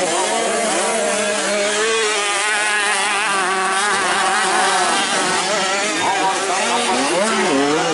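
Several motocross dirt bikes' engines revving hard, their pitch rising and falling as the riders accelerate and shift through the turns.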